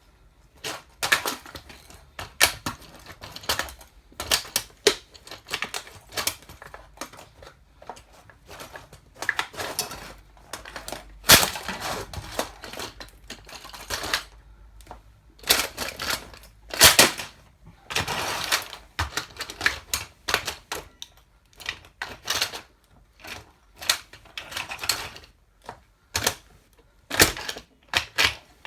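Toy car being crushed under 8-inch platform high heels: a long run of irregular sharp clicks, cracks and clattering, with a few louder cracks along the way.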